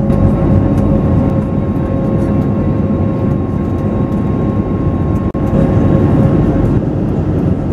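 Airbus A321neo cabin noise heard from a window seat in the climb: a steady rush of engine and airflow with a constant droning hum from the Pratt & Whitney geared turbofan engines. The sound drops out for an instant about five seconds in, at an edit cut.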